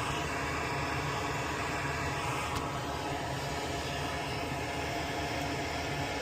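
Steady mechanical background noise, like a running fan or ventilation unit, with one faint click about two and a half seconds in.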